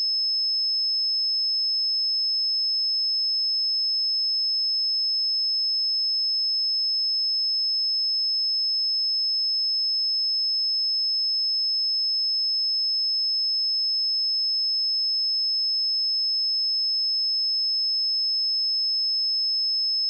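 A steady, unchanging 5205 Hz sine-wave test tone: one pure high-pitched tone held at constant loudness.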